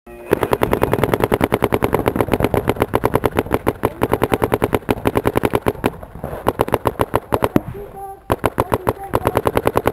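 Paintball markers firing rapid strings of shots, near-continuous for about the first six seconds, then sparser shots and another quick burst near the end.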